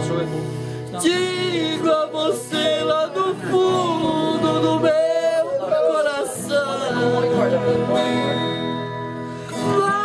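A man singing a slow song in Portuguese, with long held notes, accompanied by two strummed acoustic guitars.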